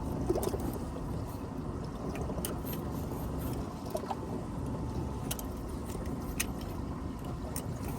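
Steady low rumble of a fishing boat on the water, with a few faint scattered clicks.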